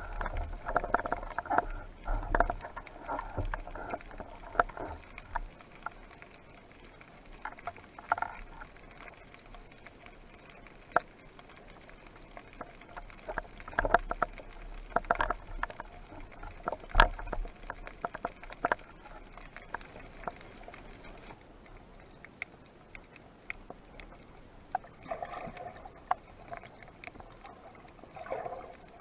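Underwater sound in a spearfishing dive: irregular sharp clicks and knocks, with short gurgling, bubbly bursts near the start, in the middle and near the end.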